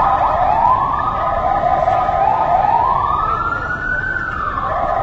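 Emergency vehicle siren wailing, its pitch slowly sweeping up and down twice, over the steady noise of city street traffic.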